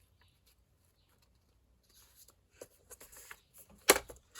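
Sheet of paper being handled and lined up on a paper trimmer: light scattered rustles and ticks, then one sharp click near the end.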